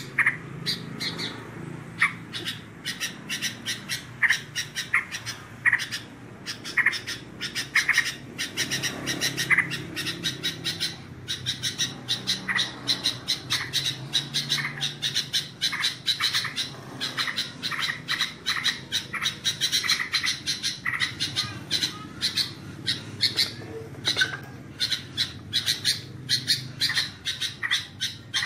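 Yellow-vented bulbul (terucuk) chattering, a dense, unbroken run of short, rapid calls.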